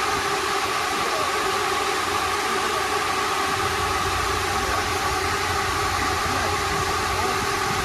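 Steady hum of a large swarm of drones' propellers, an even hiss with a held buzzing tone that does not change.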